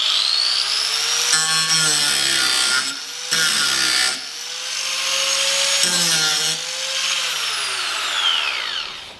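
Draper 600 W angle grinder running at speed with a high whine, its grinding wheel biting into a steel bar in about three short passes; the motor's pitch dips under each bite. The wheel winds down with a falling whine near the end.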